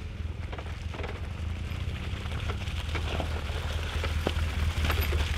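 Adventure motorcycle engine running at low trail speed along a dirt track, slowly getting louder as the bike approaches, with a few sharp clicks from the tyres over the ground.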